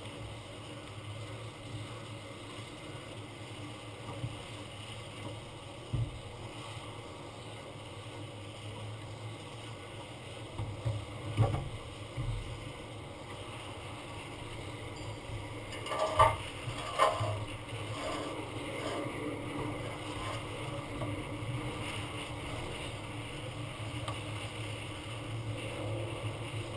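Steady low background rumble of an airport apron, with a few short knocks and clunks about 11 seconds in and again around 16 to 17 seconds in.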